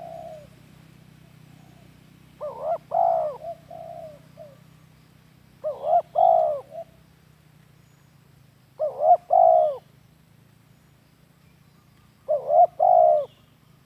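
Spotted dove (tekukur) giving its lure call: four repeated cooing phrases about three seconds apart, each two short notes running into a longer coo, with softer trailing notes after the first phrase.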